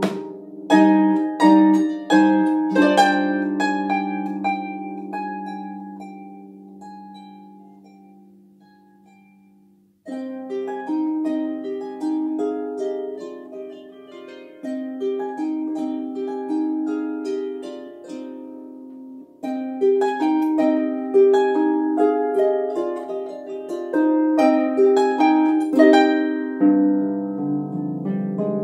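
Solo lever harp playing a flamenco-style piece. Opening plucked chords ring and die away slowly for several seconds. About ten seconds in, a steady run of plucked notes starts, and low bass notes join near the end.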